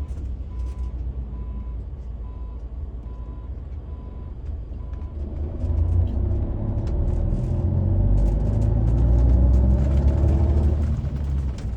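Bus engine running, then pulling away and growing louder from about five seconds in. A regular beep sounds about twice a second during the first five seconds.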